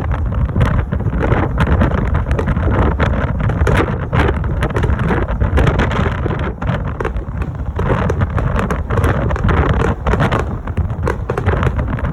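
Fireworks barrage: aerial shells fired in rapid succession, a continuous low rumble of booms with dense crackling bursts layered over it.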